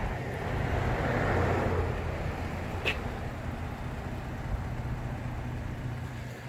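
A vehicle engine idling steadily, a low even hum, with a short click about three seconds in.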